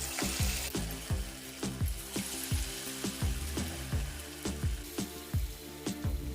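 Spinach bonda batter deep-frying in hot oil in a kadai: a steady sizzle, strongest in the first second, under background music with a steady beat.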